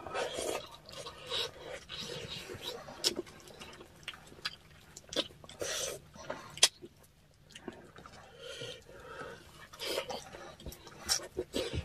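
Eating sounds from a meal of salmon-head sinigang soup: irregular chewing and slurping, with sharp clicks scattered throughout.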